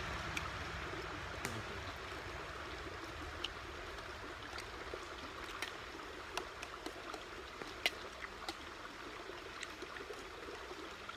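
Spoons clinking and scraping against stainless steel bowls: scattered sharp light clicks, the loudest about eight seconds in, over a steady rushing background.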